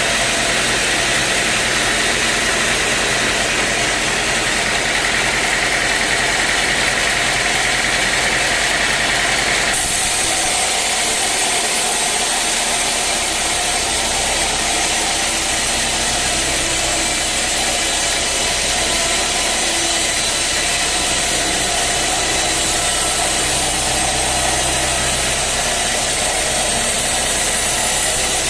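Engine-driven sawmill machinery running steadily. The sound changes abruptly about ten seconds in.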